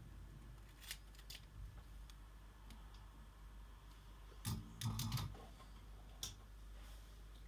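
Faint scattered clicks and taps over a low steady hum, with a short cluster of knocks about four and a half seconds in.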